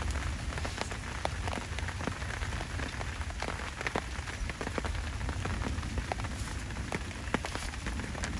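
Rain falling on a camouflage hunting ground blind: many small, irregular drop ticks over a steady hiss, with a low rumble beneath.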